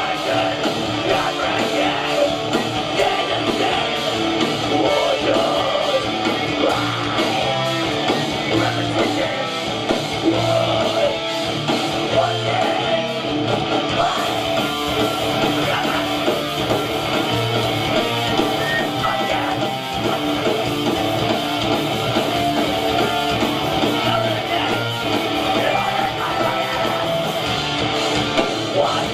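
Live hardcore punk/metalcore band playing: distorted electric guitars, bass and drums at full volume.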